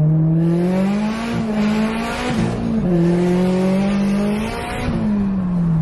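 Engine of a turbocharged Toyota 86 (flat-four) accelerating hard, heard from inside the cabin. It revs up, drops back in pitch about halfway through on a gear change, then climbs again and eases off near the end.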